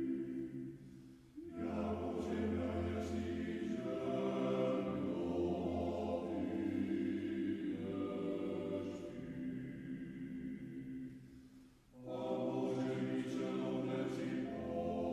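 A choir singing slow chant in long, held phrases, with a brief break between phrases about a second in and another near the end.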